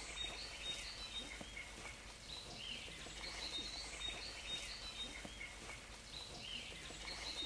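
Faint birdsong in quiet outdoor ambience: short chirps and warbling phrases repeating every second or so, over a low steady hum.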